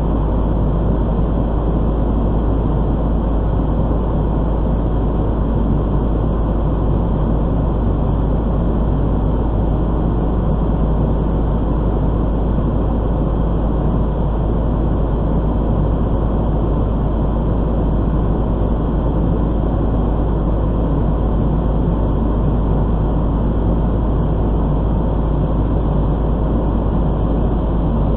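Fire engine's diesel engine running, a loud, steady drone that does not change.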